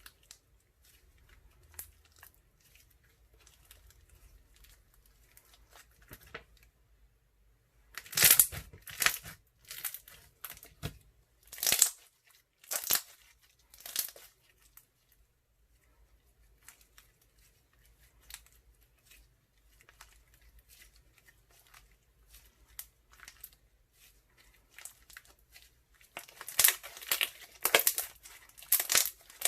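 Crunchy clear slime worked by hand, crackling and popping with air bubbles. Faint scattered crackles, a run of loud crunchy bursts about a third of the way in, and dense, loud crackling near the end.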